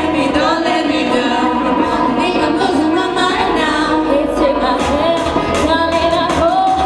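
Female vocal group singing a pop song into microphones over an amplified backing track, with drum hits coming through more strongly in the second half.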